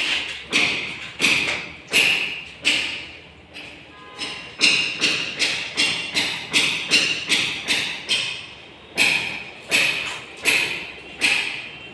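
A steady series of sharp knocks, each with a short metallic ring. They come about one every two-thirds of a second, speed up to about three a second midway, then slow again.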